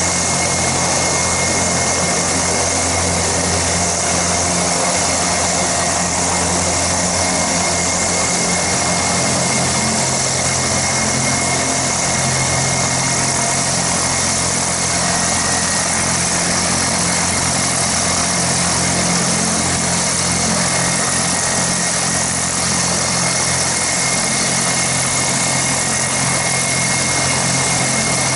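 Kazan Ansat helicopter's twin turboshaft engines running on the ground with the main rotor turning: a steady turbine whine over a broad hiss and a low hum, not changing.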